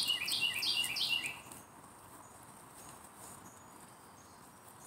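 A songbird singing a quick run of about four repeated high, downslurred notes, stopping after a little over a second. Faint rustling follows as the armadillo roots in the dry pine straw.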